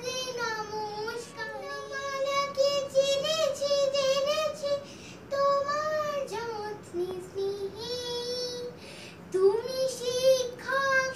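A young girl singing a song on her own, in short phrases with long held notes.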